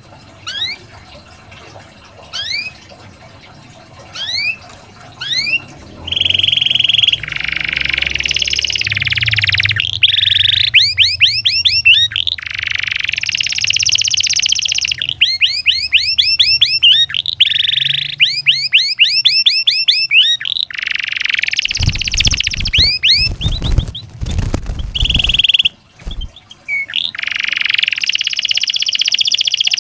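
Domestic canary singing: a few single rising chirps at first, then from about six seconds a long song of fast trills and rolling phrases built from quickly repeated rising notes. A low rumble sounds under the song for a few seconds about three-quarters of the way through.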